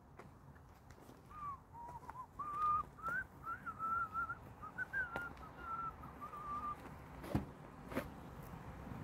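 A person whistling a short tune of held, wavering notes for about five seconds, followed by two sharp clicks near the end.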